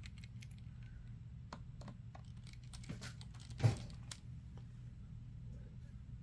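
Faint, scattered small clicks and taps of a precision Torx screwdriver driving hinge screws into a MacBook's display assembly, with one louder tap a little past halfway.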